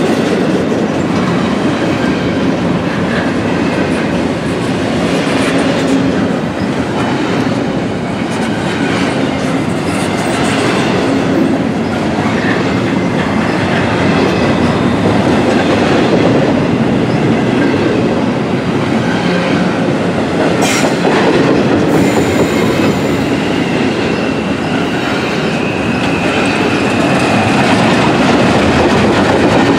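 CSX double-stack intermodal freight train's well cars rolling past at trackside: a steady rumble and clatter of steel wheels over the rails. One sharp clank comes about two-thirds of the way through, and a faint wheel squeal near the end.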